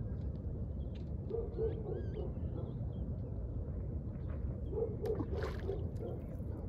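Low hooting bird calls, two short series a few seconds apart, with a few higher chirps in between, over a steady low rumble.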